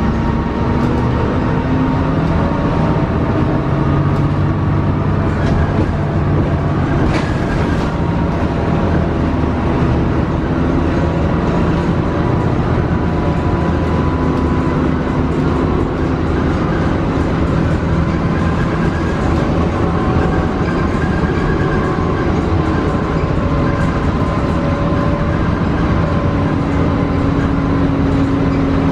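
Cabin ride noise of a 2006 Gillig hybrid bus under way, its Cummins ISB 5.9 L diesel and Allison EP40 hybrid drive running. Droning tones drift slowly up and down with speed over a steady road rumble.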